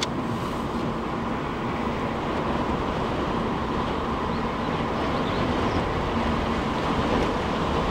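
Steady cabin noise of a car driving slowly: tyre and road noise with an engine hum, heard from inside the car.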